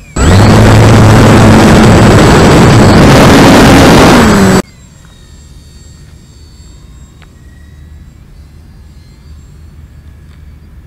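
Electric RC plane's E-flite 15-size brushless motor and propeller at full power, very loud and overloading the microphone, its pitch dipping just before it cuts off abruptly about four and a half seconds in; a faint steady motor whine carries on after.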